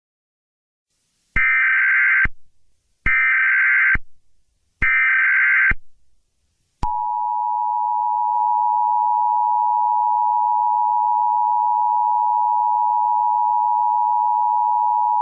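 Emergency Alert System tones: three short bursts of warbling digital data tones, each about a second long, followed by the steady two-tone attention signal held for about eight seconds.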